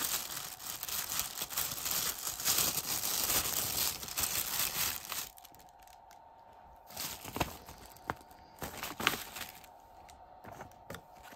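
Clear plastic packaging bags crinkling and rustling as they are handled, dense for about five seconds, then quieter with a few light clicks.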